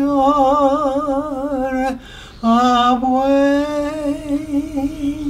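A solo voice singing a slow ballad unaccompanied, holding notes with a wavering vibrato. About two seconds in it breaks for a breath, then holds one long note.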